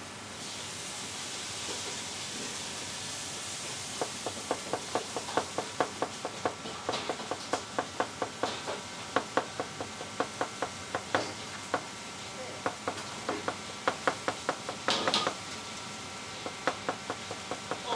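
Kitchen knife chopping quickly and evenly on a cutting board, about four to five strokes a second, starting a few seconds in and easing off near the end. The strokes are cutting potatoes into thin shreds. Before the chopping starts there is a steady hiss.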